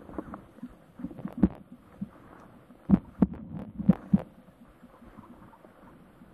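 A string of dull knocks and thumps from fishing tackle being handled on a seat box, close to the microphone. The loudest four come in quick succession about three to four seconds in, then only faint taps.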